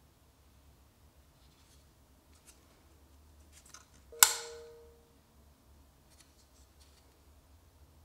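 QSP 149 Swordfish folding knife flipped open: the blade snaps into its locked position with one sharp metallic click that rings briefly, about four seconds in. Faint handling ticks come before and after.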